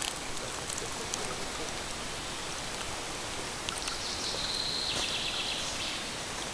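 Shallow stream water trickling over a pebble and cobble bed, a steady hiss. A faint high thin sound joins it for about two seconds after the middle.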